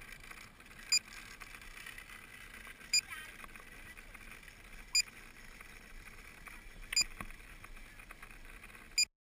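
Short electronic beep or tick repeating every two seconds over a faint steady hiss, cutting off abruptly near the end.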